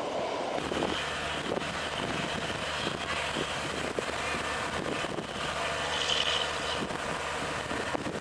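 An engine running steadily with a low, even hum, taking over about half a second in from a broad rushing noise.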